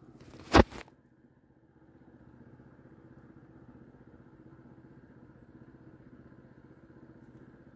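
A single sharp knock or rustle of handling about half a second in. Then a faint, steady drone of a motor vehicle engine running at an even speed.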